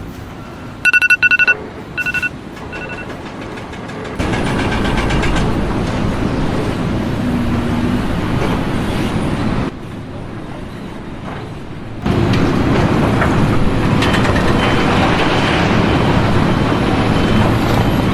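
A few short electronic beeps in the first three seconds, then heavy machinery engines running loudly, with abrupt changes in level.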